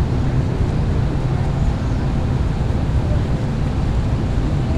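Steady city traffic on a wet street: a constant low rumble with a hiss over it.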